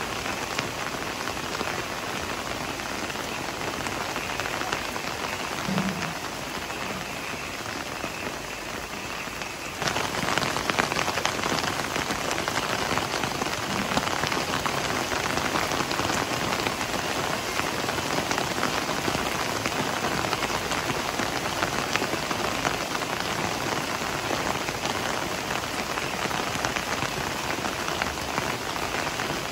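Heavy rain falling steadily on leafy plants, an even hiss of drops that grows suddenly louder and brighter about a third of the way in.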